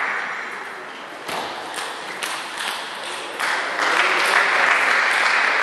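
Table tennis balls ticking off bats and tables, sharp clicks scattered through the hall, over a steady hiss of crowd noise that fades in the first second and swells back up about three and a half seconds in.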